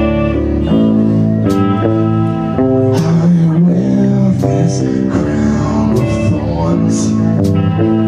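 Rock band playing live: electric guitar chords and drums with several cymbal hits, with a male singer's voice coming in about three seconds in.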